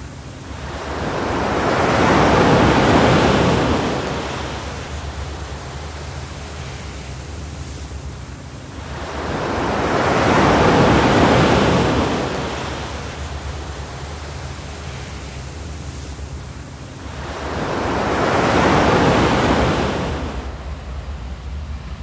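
Pacific Ocean surf breaking and washing up a sand beach: three waves swell and fade about eight seconds apart, over a steady low rumble.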